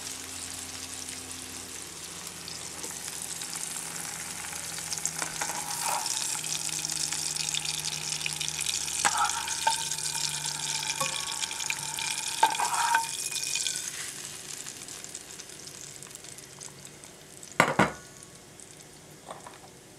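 Sockeye salmon fillets sizzling in a frying pan, the sizzle swelling and then dying away after about fourteen seconds. A sharp knock near the end.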